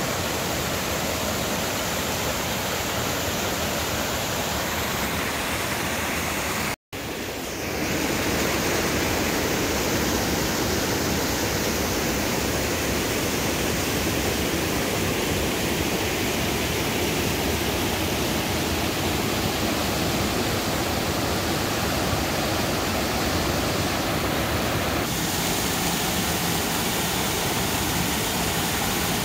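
Waterfall rushing steadily, with a split-second dropout about seven seconds in, after which the rush comes back a little louder.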